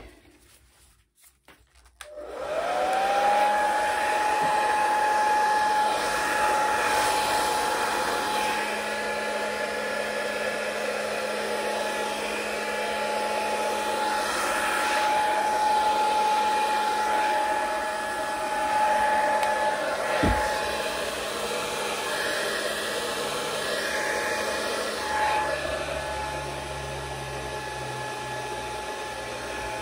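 Hair dryer switched on about two seconds in, its motor spinning up to a steady whine over a rush of air, blowing across wet paint on a canvas. It eases slightly quieter near the end.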